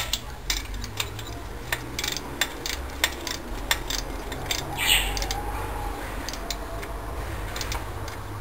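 Irregular metallic clicks of a wrench tightening nuts on a 66cc two-stroke bicycle engine, with one louder brief rasp about five seconds in, over a steady low hum.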